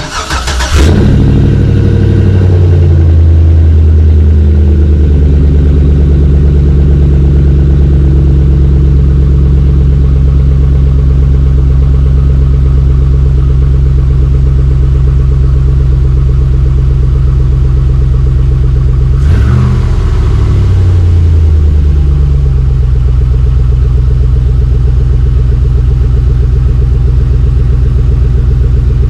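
Chevy 5.3 L LS V8 with a Flowmaster 40 series stainless cat-back exhaust, starting up and then idling steadily. About 19 seconds in it gives a short rev and falls back to idle.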